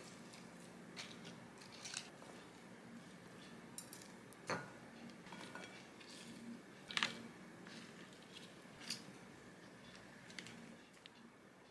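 Scattered light clicks and taps of metal tongs against a ceramic bowl and a plastic salad container as salad is served out. The two sharpest taps come about four and a half and seven seconds in.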